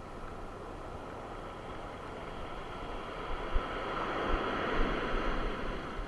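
Sea surf: the hiss of a wave washing up the beach, swelling to a peak about four to five seconds in, with wind buffeting the microphone.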